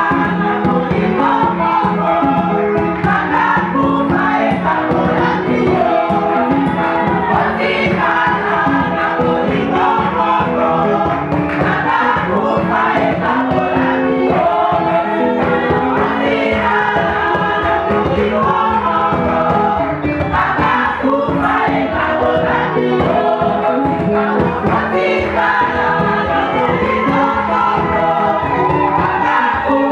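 Choir singing gospel music over a steady beat.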